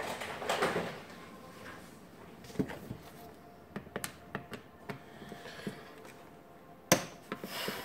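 Handling noise from a Makita DHP480 cordless drill and a screwdriver on a wooden workbench. A rustle as the drill is picked up, then scattered light clicks and one sharp knock a second before the end, as the screwdriver is worked inside the chuck on its left-hand retaining screw.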